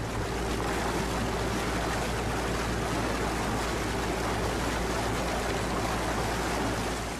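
Steady rushing noise of water and wind on open water, even throughout, with a low rumble underneath.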